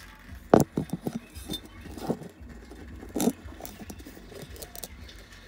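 Irregular knocks and light clatter from a removed exhaust pipe being handled close up, the loudest about half a second in and a few more about 2 and 3 seconds in, over a low handling rumble.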